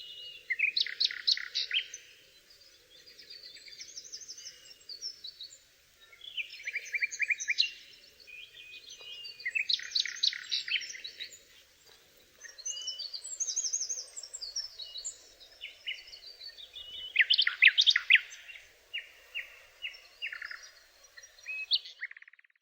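Songbirds singing: phrases of rapid, high chirping notes come every few seconds, some trilled, some a quick run of repeated notes.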